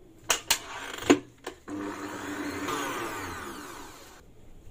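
A few knocks, then a stand mixer's whisk beating chilled, set pastry cream for about two and a half seconds to loosen it smooth, before it stops near the end.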